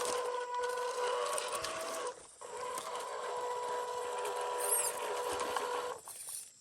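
Electric motor and gearbox of a 1/12-scale MN128 RC Jeep crawler whining steadily under throttle. It cuts out briefly about two seconds in and again near the end.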